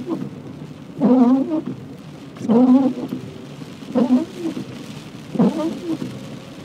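Car windscreen wiper blade squeaking across the wet glass on each sweep, a short pitched squeal about every one and a half seconds, over the steady hiss of heavy rain and wet road.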